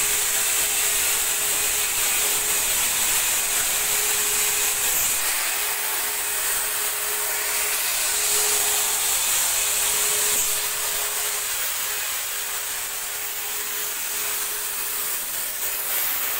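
Handheld disinfectant fogging machine running steadily, a high airy hiss over a steady motor hum as it sprays mist, dipping slightly past the middle.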